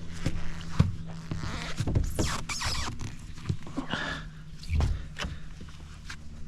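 Footsteps and scattered knocks and thuds, with a rustling noise about two seconds in, over a steady low hum.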